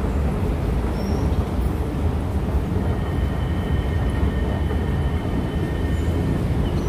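Steady low background rumble of outdoor station-plaza ambience. Two faint steady high tones sound through it from about three seconds in until shortly before the end.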